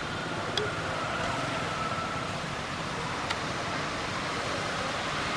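Steady road traffic noise from a nearby road, with two brief sharp clicks, about half a second and about three seconds in.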